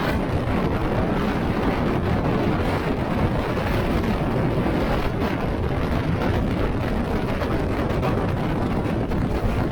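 Very strong mountain wind buffeting the microphone: a loud, continuous rumble, heaviest in the low end, rising and falling in gusts without letup.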